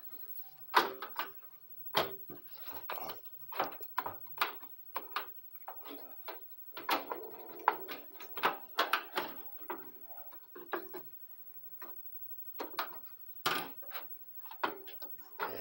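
Irregular clicks and knocks of hands working inside a desktop PC case, handling a graphics card at the motherboard's expansion slots: plastic and metal parts tapping and snapping.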